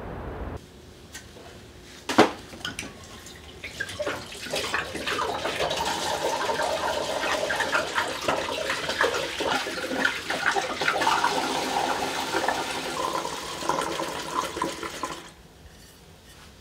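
Liquid poured from large bottles into a big aluminium pot on the stove, splashing for about ten seconds and stopping near the end, with one sharp knock about two seconds in.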